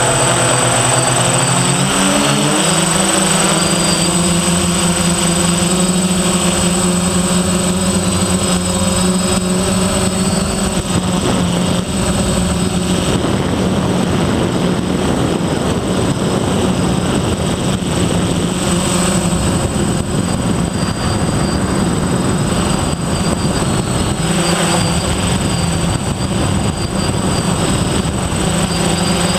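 Electric motors and propellers of a DJI F450 quadcopter buzzing steadily in flight, several close pitches together, rising in pitch about two seconds in.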